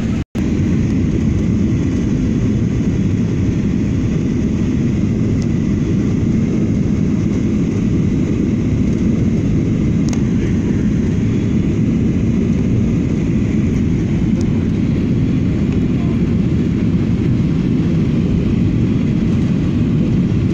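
Steady airliner cabin noise on final approach: the low, even rumble of the engines and rushing air heard from inside the passenger cabin. It cuts out for an instant near the start.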